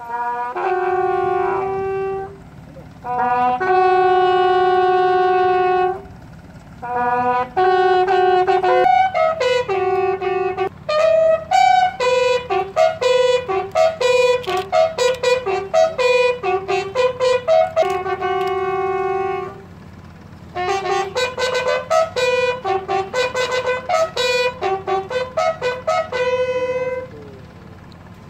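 A bugle call played on a lone brass bugle or trumpet, sounded as a salute: a single line of notes, some held for about two seconds and others in quick runs, with short breaks twice.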